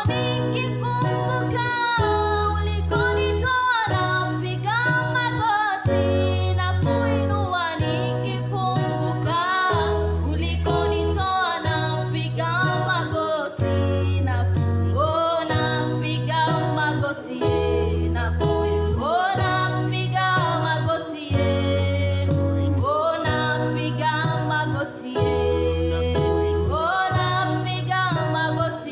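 A woman and a man singing a Swahili gospel worship song together over an electronic keyboard, which plays a bass pattern repeating about every second and a half.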